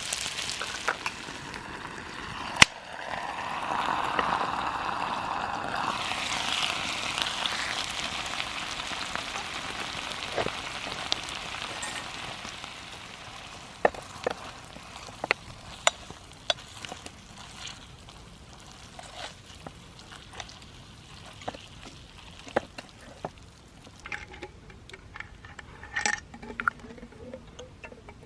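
Food frying and sizzling in a pan, with a metal utensil stirring and clinking against it. The sizzle is loudest in the first half, then fades to a quieter hiss with scattered clinks and taps.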